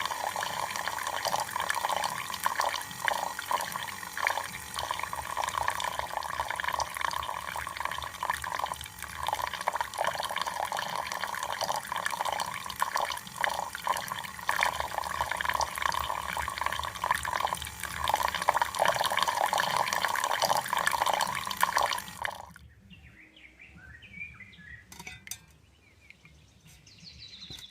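Water pouring and splashing steadily, cutting off suddenly about 22 seconds in, followed by faint ticks.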